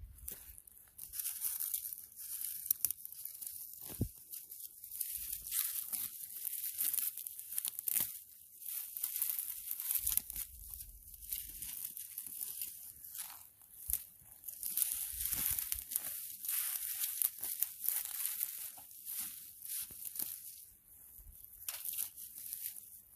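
Dry marigold seed heads and debris rustling and crackling as they are gathered up, irregular and scratchy, with a few light knocks.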